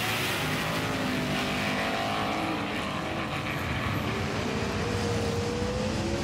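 Race-car engine sound effect: a steady engine drone whose pitch climbs slowly in the second half.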